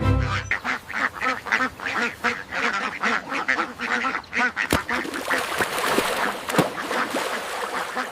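A flock of birds calling, many short overlapping calls in quick succession.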